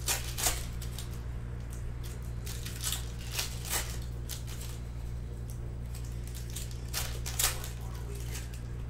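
Bowman Sapphire baseball cards handled and flipped through by hand, giving short dry swishes and scrapes: two near the start, three between about three and four seconds in, and two more around seven seconds in. A steady low hum runs underneath.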